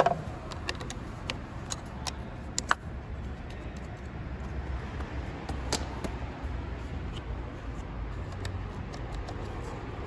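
A few sharp clicks and knocks of hand tools at work on a pickup truck's battery, over a steady low hum.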